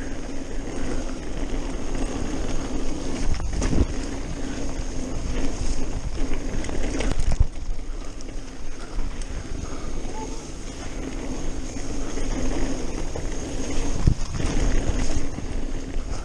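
Mountain bike ridden along a dirt singletrack: a steady rumble and rattle of tyres and frame over the ground, with a few sharper knocks from bumps about four seconds in, about seven seconds in and near the end.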